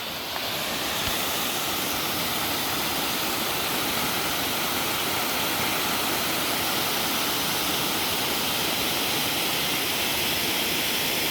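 Steady rush of water from a small woodland waterfall spilling into a fast-flowing creek, a little louder after the first half second.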